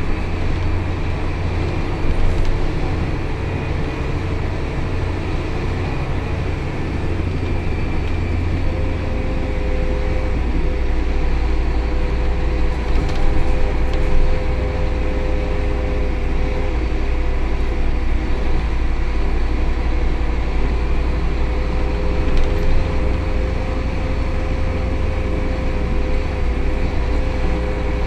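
Scania K280 city bus driving, heard from inside the rear of the passenger cabin: a steady low engine drone with road rumble. A steady whine joins about nine seconds in and holds.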